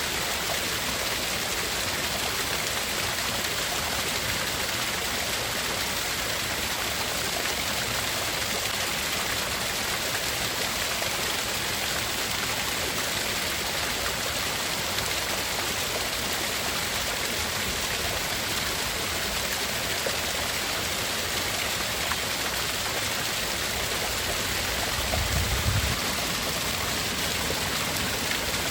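Steady, even rushing noise of a tinnitus-masking track, sounding like running water, with a brief low rumble near the end.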